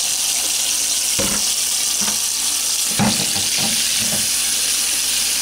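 Kitchen faucet running a steady stream of water into a stainless steel sink. Two short knocks come as things are handled in the sink, about a second in and again about three seconds in.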